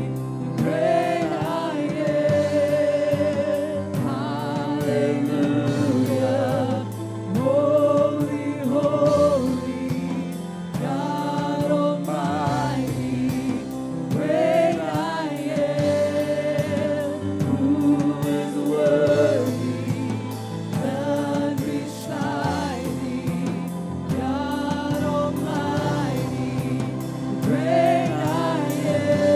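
Gospel choir singing with vibrato over sustained organ or keyboard chords and a light drum beat: congregational worship music.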